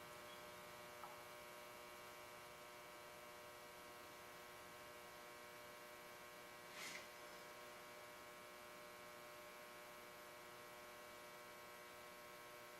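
Near silence with a steady electrical mains hum, and one brief faint swish about seven seconds in.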